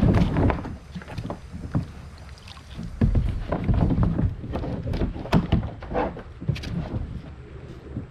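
Irregular knocks and bumps on a plastic sit-on-top kayak as the paddler shifts in the seat and handles the paddle against the hull, over a low rumble. The handling is loudest about a second in and again around three to four seconds in.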